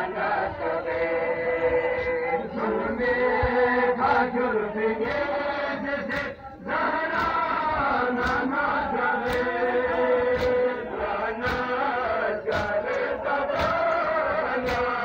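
Group of men chanting a Balti noha, a Muharram mourning lament, in unison. From about halfway through, sharp chest-beating slaps (matam) come roughly once a second.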